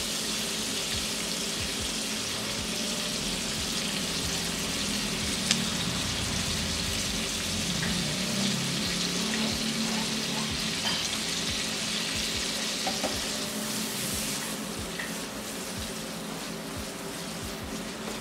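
Sliced shallots and garlic sizzling steadily as they fry in melted butter in a coated wok, stirred with a spatula near the end. A single small click about five seconds in.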